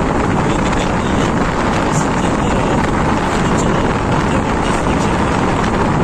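Steady rush of wind on the microphone over the running engine and tyre noise of a motorcycle being ridden along a paved road.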